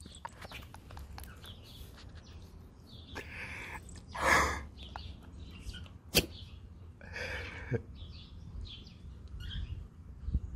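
Small birds chirping repeatedly in the background, with three short breathy hisses, the loudest about four seconds in, and a single sharp click just after six seconds.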